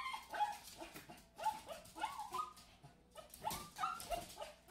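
Small dog barking in short, high yaps, about a dozen of them in uneven runs, excited by a balloon being batted about.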